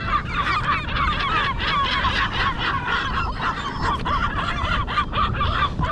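A flock of birds calling without pause, many short overlapping cries, over a steady low rumble.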